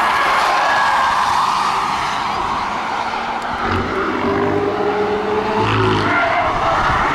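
Tyre and road noise from a camouflaged prototype sedan driving away through a corner on a racetrack, with brief thin tyre squeals. About three and a half seconds in, the engine of an approaching camouflaged Mercedes-AMG GLC prototype comes in over it.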